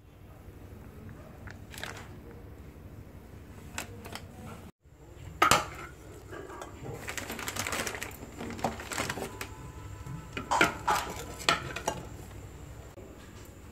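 Eggs handled and set down into an aluminium plate: a few sharp clinks of shell on metal, with the rustle of a plastic bag in between.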